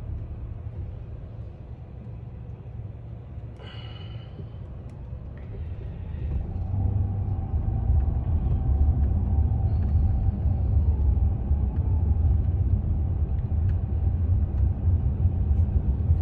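Low cabin rumble of a Waymo Chrysler Pacifica Hybrid minivan driving on the road, growing louder about six seconds in and staying loud, with a faint steady whine joining it.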